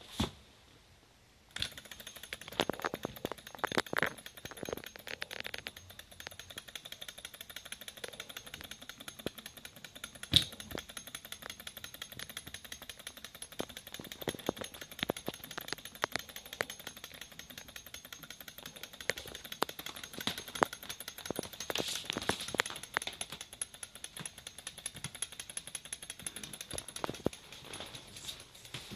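Small Stirling-engine tank model running: its two-cylinder metal engine, linkage and gearing make a rapid, steady ticking clatter in the acrylic chassis, with a few louder knocks along the way.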